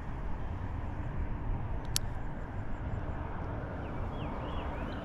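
Steady low outdoor rumble, with a single sharp click about two seconds in and a few short chirps near the end.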